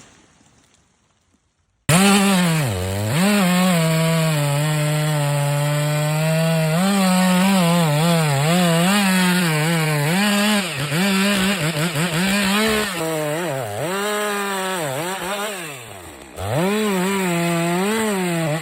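Chainsaw cutting into a tree trunk, starting suddenly about two seconds in after a near-silent moment. The engine runs at high revs in the cut, its pitch rising and falling repeatedly, with two sharp dips, one just after it starts and one near the end.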